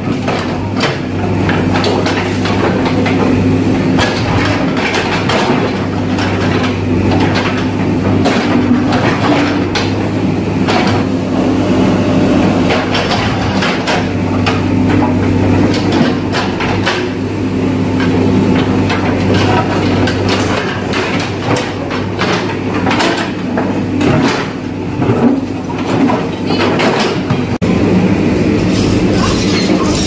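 Diesel engine of an excavator running with a steady drone as its steel bucket digs and scrapes through broken concrete and soil, with frequent clanks and knocks of rubble against the bucket.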